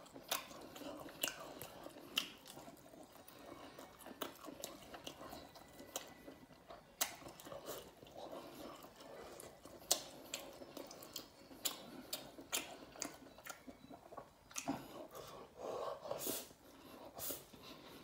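A man chewing and smacking his lips close to the microphone as he eats chicken gizzards and noodles: many short wet clicks throughout. There is a louder stretch of eating noises a little before the end as he takes in a mouthful of noodles.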